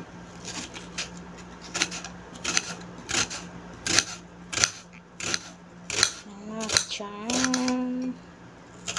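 Kitchen knife slicing a red onion on a ceramic plate, each cut ending in a sharp click of the blade against the plate, roughly every two-thirds of a second. About six and a half seconds in, a short hummed voice sound.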